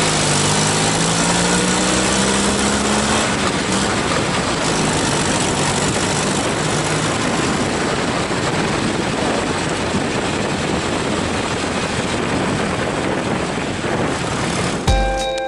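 1975 Fiat 500R's two-cylinder engine running through a new exhaust silencer. It rises in pitch as it revs up over the first three seconds, then settles into a steady, rushing engine and exhaust noise. Music comes in near the end.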